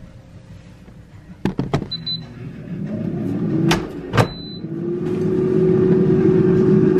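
Instant air fryer: the basket clicks back into place, two short beeps sound as the timer is set, and the fan spins up with a rising hum about three seconds in, settling into a steady whir that grows louder toward the end.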